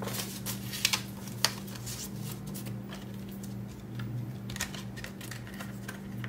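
Paper banknotes and cash envelopes being handled: irregular light rustles and small taps as bills are shuffled and slipped into a binder envelope, over a steady low hum.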